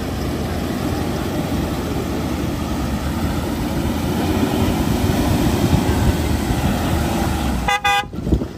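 A vehicle engine running with a dense rumble that grows a little louder after the midpoint, then a short car-horn toot near the end.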